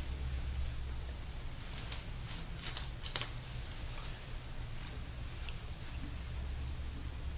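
Scattered small, crisp clicks and ticks from hair tools being handled, the loudest about three seconds in, over a steady low hum.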